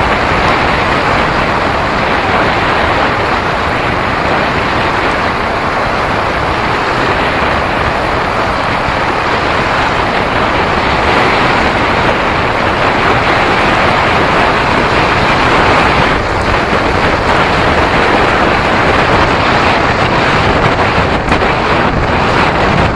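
Loud, steady wind noise buffeting the microphone of a camera riding along on a moving bicycle.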